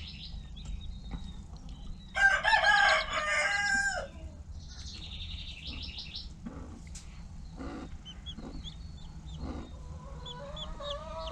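A rooster crows once, about two seconds in, a loud call lasting nearly two seconds. Newly hatched chicks peep faintly around it, in short high chirps, and a quieter rising chicken call comes near the end.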